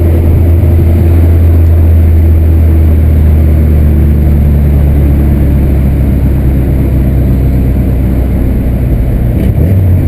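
VW Santana 2.0's AP 2000 four-cylinder engine and exhaust running at a steady speed while the car drives, a loud, even, low drone.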